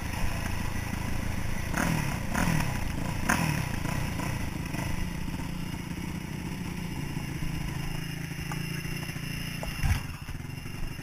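Yamaha YZ426F four-stroke single-cylinder dirt bike engine running at low revs. A few short revs fall away in the first few seconds, then it settles to a steady idle-like run. There is one thump near the end.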